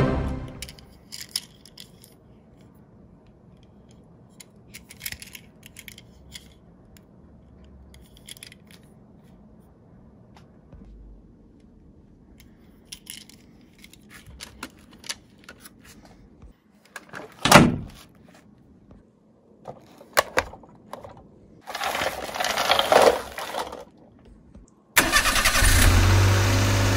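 Small clicks and clacks of die-cast minicars being handled and set into a plastic carrier case, with one louder knock a little past the middle and a stretch of scraping later on. About two seconds before the end a steady truck-engine running sound starts.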